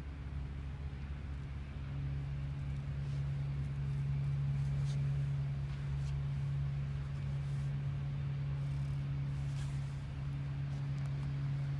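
A steady low mechanical hum, like an engine running, that grows a little louder about two seconds in, with a few faint clicks over it.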